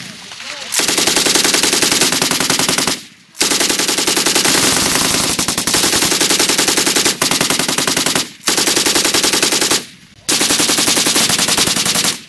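6.8mm M250 machine gun firing on full automatic in four long bursts, each lasting from about a second to five seconds, with short pauses between them.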